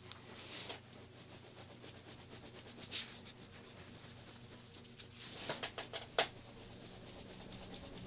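Hands rubbing and pressing on bare feet in a reflexology massage: soft skin-on-skin swishes with small ticks, one near the start, another about three seconds in and a cluster around five to six seconds, over a faint steady hum.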